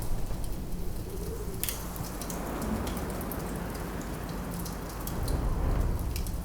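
Wood fire crackling with scattered sharp pops, one louder crack about one and a half seconds in, over a low steady rush of wind.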